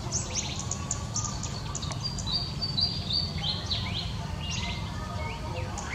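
Wild birds chirping, a busy mix of short high chirps and quick falling notes, over a steady low outdoor rumble.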